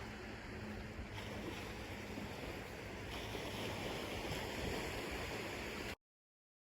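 Steady rushing noise of surf and wind, cutting off abruptly to dead silence about six seconds in.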